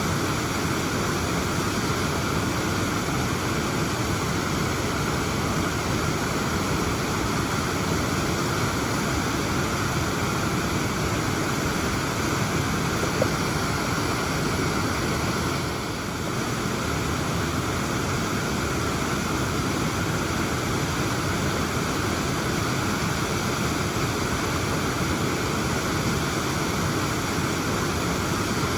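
Waterfall rushing steadily, a constant roar of falling water.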